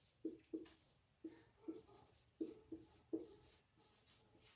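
Marker pen writing on a whiteboard: a series of short, faint strokes as letters are written.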